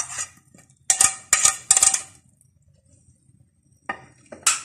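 A metal spoon scraping and tapping against a ceramic plate as shredded vegetables are pushed off it into a pot: a quick run of clinks in the first two seconds, then a few more clinks near the end.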